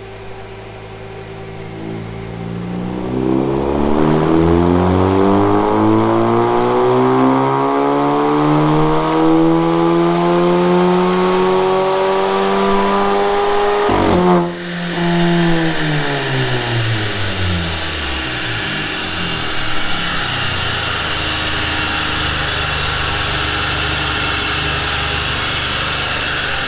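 Volkswagen T-Roc's 1.4 TSI turbocharged four-cylinder making a full-throttle pull on a chassis dyno. The engine note climbs steadily for about ten seconds, breaks off with a sharp crack as the throttle is closed, then winds down as the rollers slow, leaving a steady rushing noise.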